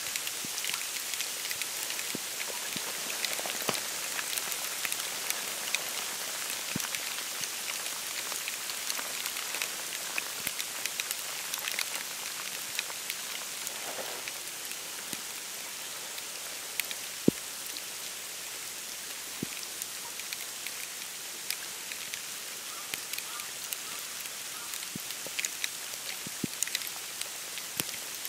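Wet snowfall pattering on marsh reeds, the boardwalk and open water: a steady soft hiss scattered with small ticks, one sharper tick about seventeen seconds in.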